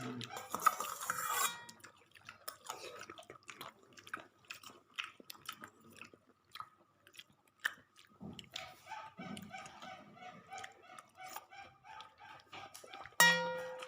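Close-up chewing of crunchy food, many short crisp crunches and bites. Near the end comes a brief, loud pitched sound.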